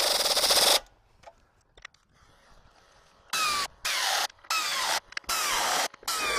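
Power tool tightening bolts: a run that cuts off just under a second in, then a pause with faint clicks, then from about three seconds in a string of short bursts, each with a whine that falls in pitch.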